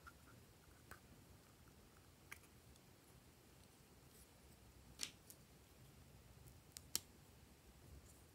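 Faint handling clicks and taps from a small hinged shell-shaped case being opened and a small plastic stick scooping glitter out of it. There are a few light clicks, and the two sharpest come about five and seven seconds in.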